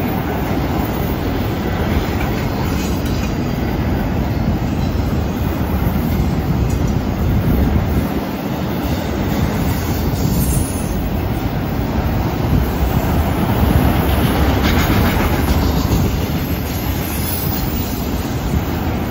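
Autorack freight cars rolling past on a curve, a steady loud rumble of wheels on rail with some clacking at the joints. Now and then a high wheel squeal rises from the curve.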